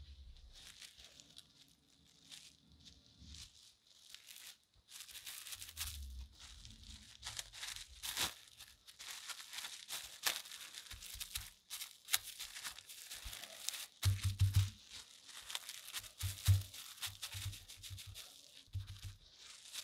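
Clear plastic cling wrap crinkling and rustling as it is stretched and wrapped around a metal part, with soft low thuds as the wrapped part is pressed down by a gloved hand in the second half.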